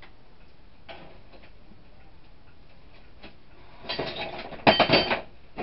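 Faint scattered ticks, then a loud clatter of several sharp knocks with a little metallic ringing about four seconds in.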